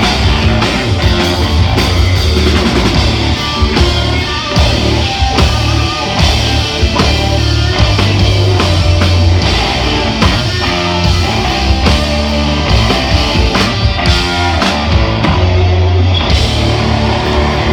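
Rock band playing live at full volume: electric guitars, electric bass and drum kit in an instrumental passage without singing.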